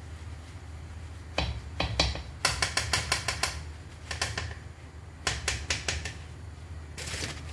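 Bursts of quick clicks and crackles, several a second, as crisp fried papadams are handled with a metal spatula over a wok, above a steady low hum.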